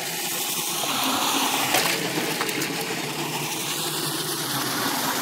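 Crypto Peerless root-vegetable peeler running with its water feed on, small perch tumbling in the spinning drum to strip off their scales: a steady rush of water and churning.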